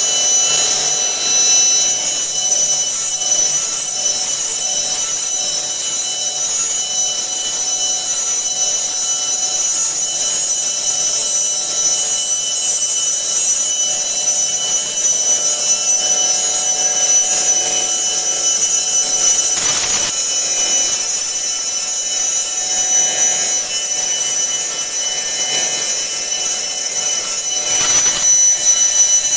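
Urschel Comitrol Model 1700 mill running steadily while milling high-fat desiccated coconut: a loud, high-pitched whine of several steady tones. Two brief knocks break in, about two-thirds of the way through and again near the end.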